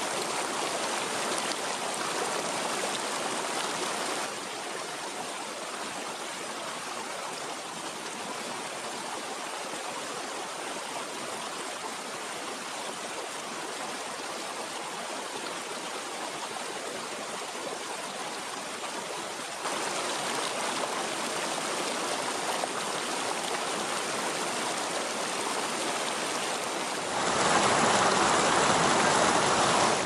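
Mountain stream flowing over rocks and shallow riffles: a steady rush of water that steps a little quieter about four seconds in, louder again about two-thirds of the way through, and louder still near the end.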